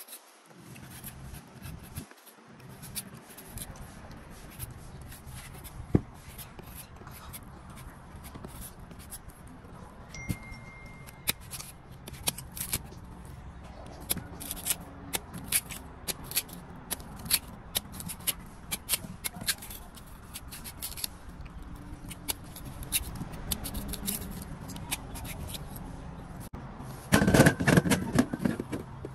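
Kitchen knife peeling and slicing a firm guava, with many short crisp clicks and scrapes as the blade cuts through the skin and flesh. A louder rustling burst comes near the end.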